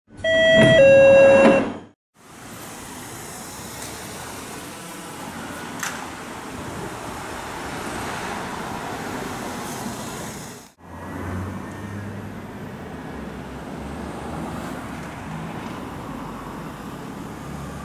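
A loud intro jingle of a few steady electronic notes lasting about two seconds, then the steady noise of road traffic with cars passing. The sound drops out briefly about eleven seconds in.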